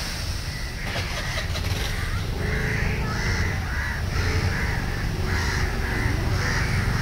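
Crows cawing in a rapid repeated series from about two and a half seconds in, over a steady low rumble and the wash of small waves on the beach.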